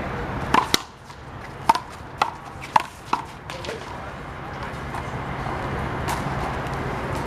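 Handball rally: a rubber ball is slapped by hand and smacks off the wall and court in sharp cracks. A quick pair of hits comes about half a second in, then four more about half a second apart, with fainter smacks later.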